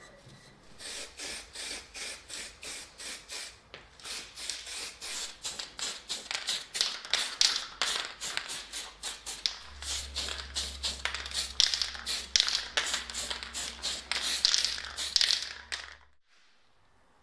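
Rhythmic rubbing or scraping strokes, about three to four a second, that stop abruptly near the end. A low steady hum joins about ten seconds in.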